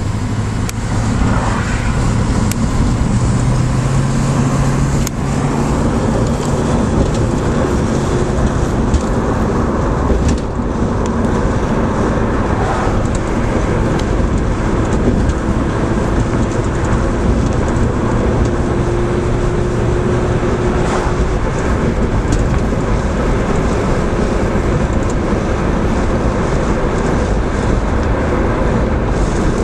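1967 Plymouth Barracuda's V8 engine running as the car drives along, heard from inside the cabin along with tyre and road noise. The engine note climbs over the first few seconds and drops about five seconds in, then holds steady.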